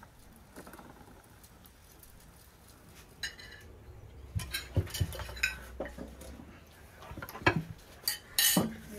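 Plates, forks and serving dishes clinking and clattering as several people help themselves to food at a laden table, starting about three seconds in.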